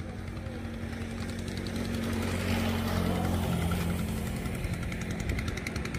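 Small wooden river boat's motor running steadily, growing louder over the first few seconds, with a slight change in pitch about three seconds in.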